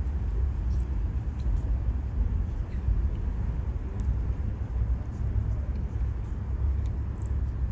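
Steady low outdoor rumble, with a few faint small clicks scattered through it.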